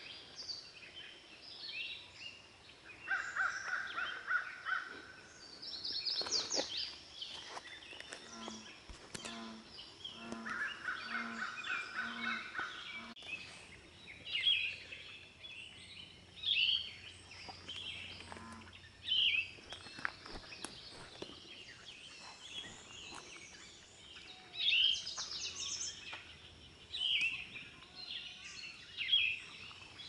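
Several wild birds singing in the early morning. A dry trill lasts about a second and a half, a few seconds in and again around ten seconds. Short, bright, high phrases repeat through the rest, with a low pulsed call in the middle.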